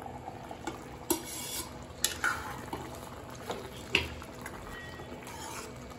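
A steel spoon stirring thick rajma (kidney bean curry) in a steel kadhai, scraping against the pan, with a few sharp metal clinks about one, two and four seconds in.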